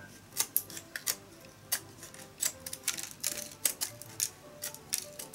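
Scissors snipping through the protruding ends of thin bamboo strips at a woven basket's rim: a quick, irregular run of sharp snips, about a dozen cuts, trimming the excess now that the glue holding the rim has dried.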